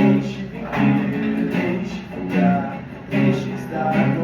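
Acoustic guitar strummed in a steady rhythm, the chords swelling about once a second.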